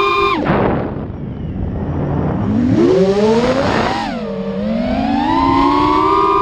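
TBS Mr Steele 2345 kV brushless motor spinning, its whine rising and falling with the throttle: it drops sharply about half a second in, with a rough hissing stretch after, climbs again a couple of seconds later, dips near four seconds and rises again. The owner finds the motor's sound bad and suspects something is wrong with it.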